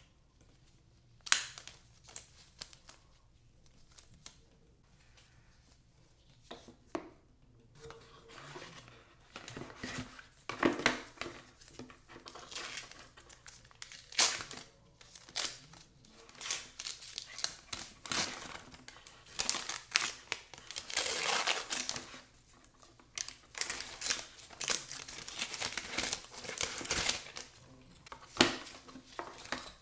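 Product packaging being unwrapped by hand: irregular crinkling and tearing with scattered sharp clicks. It is sparse at first and gets busier from about a third of the way in.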